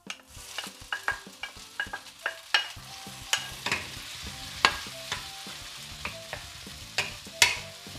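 Diced tomatoes sizzling as they go into hot oil in a nonstick wok, over sautéed onion, garlic and ginger. A wooden spatula stirs them, and its sharp knocks on the pan come again and again through the steady sizzle.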